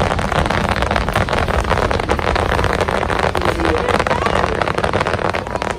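Aerial fireworks barrage: a dense, continuous run of crackling bursts over a heavy low rumble of many shells going off together.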